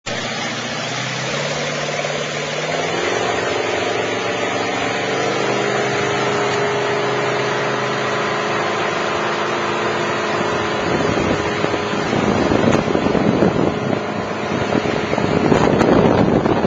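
Motorboat engine running under way, its pitch stepping up about three seconds in and then holding steady. From about eleven seconds wind buffets the microphone, growing louder toward the end.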